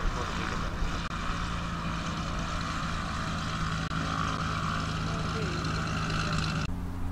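Piper PA-28 light aircraft's four-cylinder piston engine running steadily at low taxiing power as the plane passes close by, propeller turning. The sound cuts off suddenly near the end.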